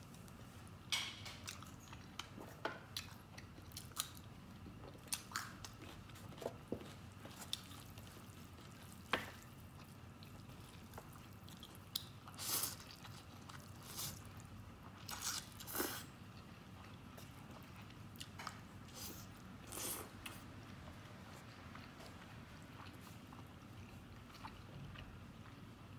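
Close-up mouth sounds of eating: wet chewing and smacking of soft, tender stewed fatty pork, with short clicks every second or two. There are a few longer slurps of noodles about halfway through.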